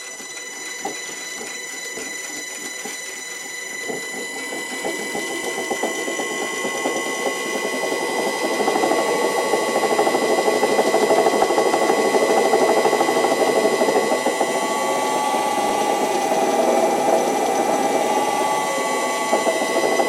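VFD-driven electric motor running a belt-driven wood lathe. It starts up and grows louder over the first eight seconds, then runs steadily with a high whine and a fast rattle. The rattle comes from play in the motor axle, which the owner suspects is a worn, egg-shaped rear bearing seat.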